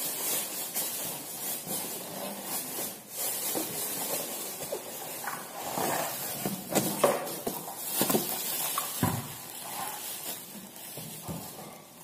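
Plastic wrapping rustling and crinkling, with cardboard rubbing, as a plastic-wrapped electric water heater is lifted out of its cardboard box. The crackles come irregularly and are loudest in the middle.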